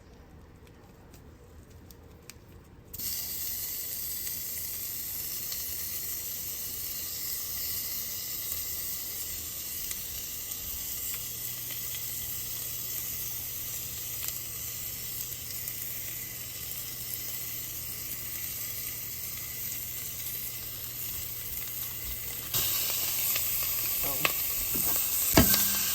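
80/20 ground beef frying in hot grease in a pan, a steady sizzle that starts suddenly about three seconds in. It gets louder near the end, with a few sharp clicks and knocks.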